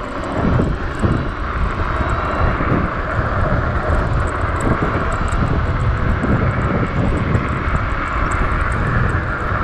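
VSETT 11+ electric scooter riding at speed over cracked, patched asphalt: steady wind rushing over the action camera's microphone and the tyres rumbling on the rough road, with faint clicks throughout.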